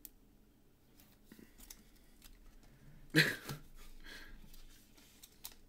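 Faint handling noise of trading cards being flipped and slid, with small clicks and rustles and one sharper, louder rustle about three seconds in.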